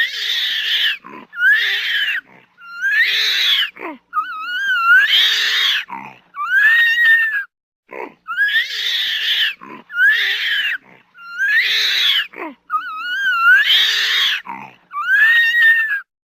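Ape screeching calls, as used for an orangutan sound effect: about ten shrill cries in a row, each about a second long, most rising in pitch and some wavering, with short pauses between them.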